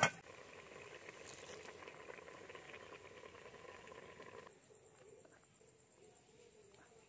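Faint bubbling and hiss of a pot of fish and vegetable soup at a boil over a wood fire. It stops abruptly about four and a half seconds in, leaving a much fainter hush.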